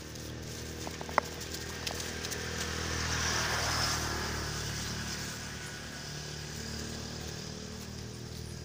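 An engine running steadily, with a rushing noise that swells to a peak about four seconds in and then fades. A single sharp click about a second in.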